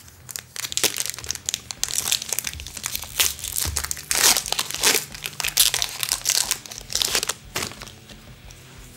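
Crinkly plastic packaging handled in the hands, giving an irregular run of crackles and rustles that are loudest about midway and thin out near the end.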